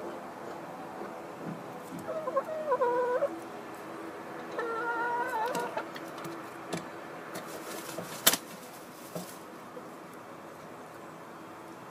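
Hen in a straw nest box giving two drawn-out, wavering calls a couple of seconds apart, with small rustles and clicks in the straw and one sharp click about eight seconds in, over a faint steady hum.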